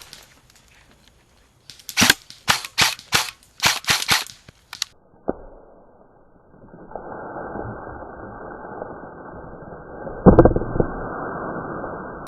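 Airsoft guns firing: a dozen or so sharp snaps over about three seconds, single and in quick pairs. After that the sound turns to a muffled, dull rush with one loud thump near the end.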